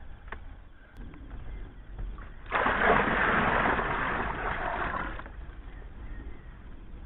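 Water poured from a bucket into a partly filled plastic tub, splashing for about three seconds and then stopping abruptly.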